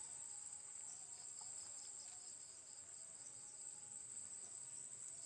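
Faint, steady high-pitched chorus of crickets chirping, unbroken throughout.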